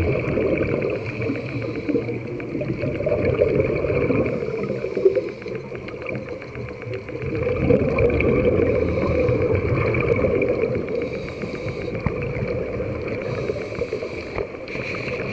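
Underwater noise picked up by a camera below the surface: a low, muffled rumble of moving water and bubbles that swells twice, over a thin steady high hum.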